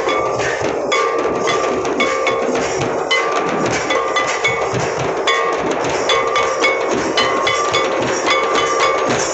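Percussion for a Santali Lagne dance: a large drum beaten with sticks in a quick, steady rhythm, with a ringing metallic clink on many of the strokes.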